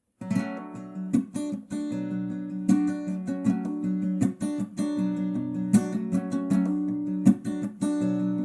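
Instrumental intro of a pop song: strummed acoustic guitar over sustained chords, punctuated by sharp percussive hits.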